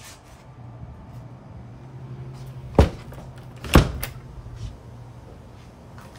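Two sharp knocks about a second apart as a small closet door is pushed shut and latched, over a low steady hum.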